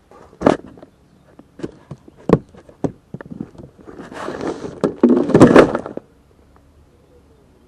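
Knocks and thuds of a boat seat and its fittings being handled, then about two seconds of scraping with heavy thumps, the loudest near the end.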